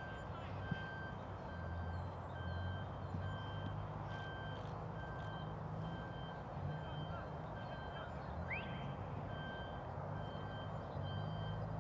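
Reversing alarm of an unseen vehicle beeping at a steady pace, roughly one beep a second, over the low hum of its engine.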